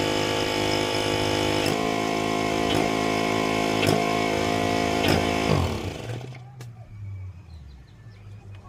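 Pressure washer's small engine running steadily, with four brief dips in pitch, then shutting off and winding down about six seconds in. A faint low hum remains after it stops.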